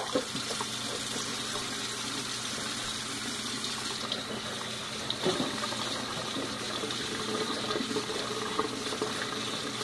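Kitchen faucet running steadily into the sink while raw chicken breasts are rinsed by hand under the stream.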